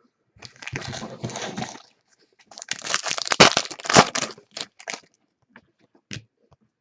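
Foil trading-card pack wrappers crinkling and tearing in two stretches of rustling, followed by a few light clicks as cards are handled.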